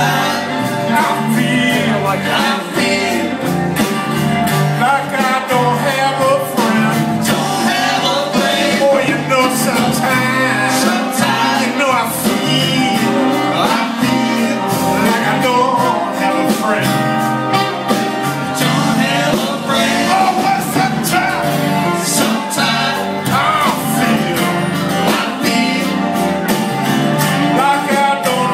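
Live band playing a song: a man singing over acoustic guitar, electric bass and a drum kit.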